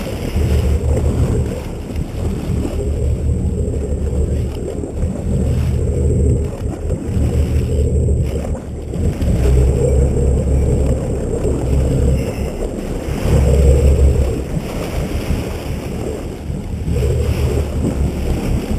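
Wind rumbling on the microphone in gusts, over sea water splashing and rushing against the side of a boat.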